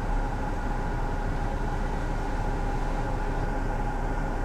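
Steady mechanical hum with a few faint steady tones, unchanging throughout.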